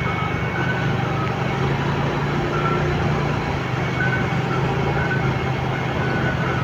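Motorcycle engine running at a steady cruise while riding, with road and wind noise.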